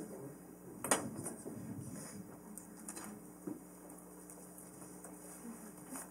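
Quiet room tone with a low steady hum, a sharp knock about a second in, and a few faint clicks and rustles after it.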